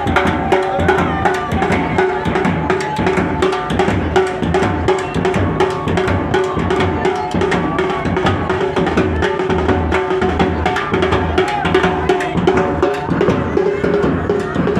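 Wedding band playing: bass drums and snare drum beat a quick, steady rhythm under a sustained melody line.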